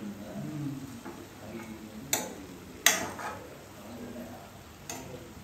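Steel spoon knocking and scraping against a non-stick frying pan while stirring chicken pieces: a few sharp clicks, the loudest about three seconds in.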